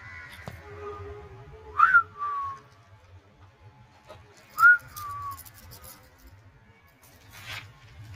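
A person whistles a two-note dog recall call twice, about three seconds apart. Each call is a short note that swoops up, then drops to a lower held note.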